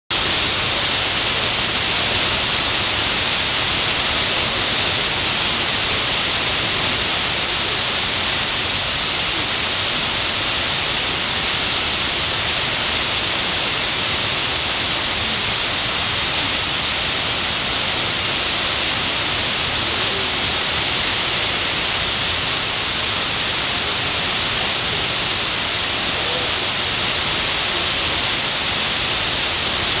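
Large multi-tiered waterfall: the steady rush of falling water, loud and even, without a break.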